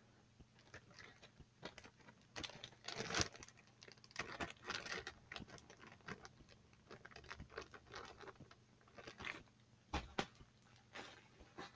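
Faint scattered rustling, crinkling and clicks from things being handled off camera, busiest from about two to five seconds in and again near ten seconds.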